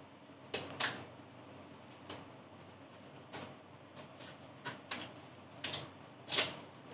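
A small microphone retail box being opened and handled by hand: irregular sharp clicks and crinkles of the packaging, about a dozen scattered through the few seconds, the loudest a little before the end.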